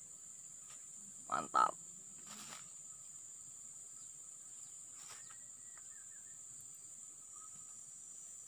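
Insects droning steadily at a high pitch, with a couple of faint brief rustles.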